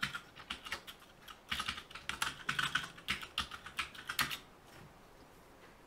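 Typing on a computer keyboard: a quick run of keystrokes with a short pause about a second in, stopping a little after four seconds.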